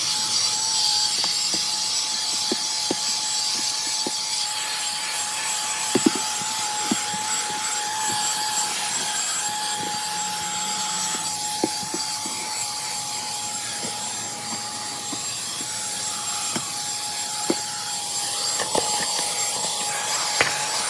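Vacuum cleaner running steadily with a constant motor whine, the nozzle working over car carpet and seats with scattered small clicks of debris and knocks.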